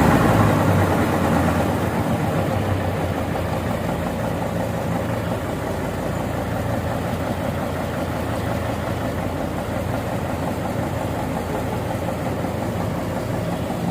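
Diesel engine easing down over the first couple of seconds, then idling steadily.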